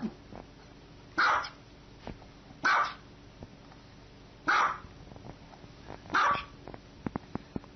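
Small white dog barking four times: single short barks, one every second and a half or so.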